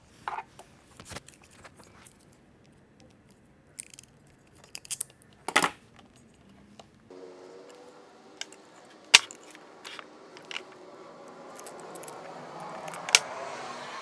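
Small metal crimp terminals clinking and jingling as they are handled, with a few sharper clicks and snaps from a hand crimping tool pressing them onto the wire ends. A faint steady hum comes in about halfway through.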